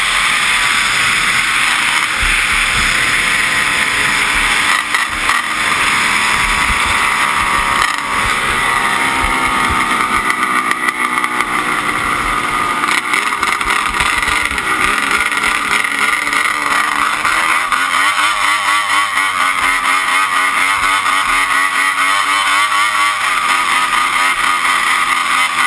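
Snowmobile engine running hard, heard from on board with a steady rush of wind and track noise. Its pitch falls over the first ten seconds or so as the sled slows, then wavers up and down at a lower speed.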